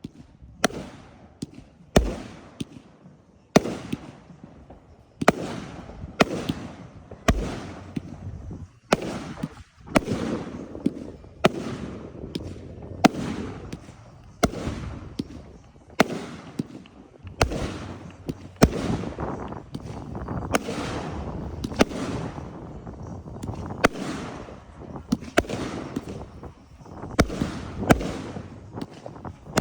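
Aerial fireworks going off in quick succession: sharp booming bursts about once or twice a second, each trailing into crackle and rumble, thickening into a near-continuous crackling barrage through the middle.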